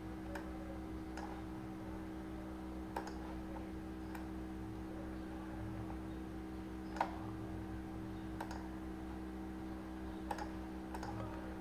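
Computer mouse clicks, about eight scattered single clicks, the sharpest about seven seconds in, over a steady low electrical hum.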